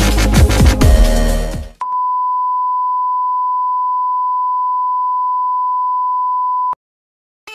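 Electronic dance music with a heavy bass beat, cut off about two seconds in by a single steady beep at one pitch that holds for about five seconds and stops abruptly.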